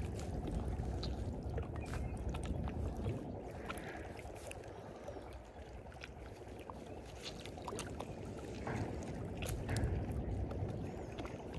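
Small sea waves lapping and sloshing against shoreline rocks, a steady low wash that swells and eases, with a few faint light clicks.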